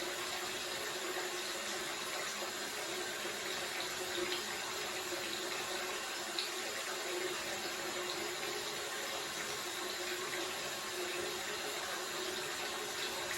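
Steady hissing background noise of an indoor rodeo arena, with a faint steady hum and a couple of faint knocks.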